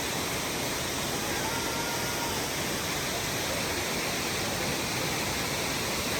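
Waterfall rushing, a steady, even wash of falling water.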